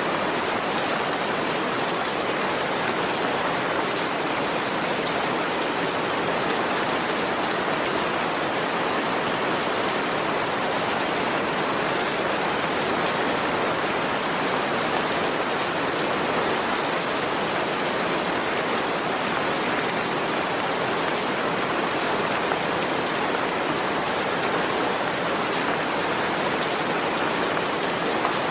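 Heavy rain falling steadily: an even, unbroken hiss of a downpour with no let-up.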